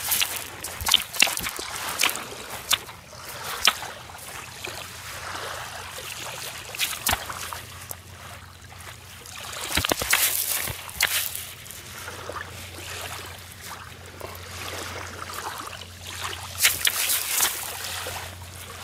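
Water washing and trickling over a shingle beach, with irregular clicks and crunches of pebbles. Louder bunches of clatter come about ten seconds in and again near the end.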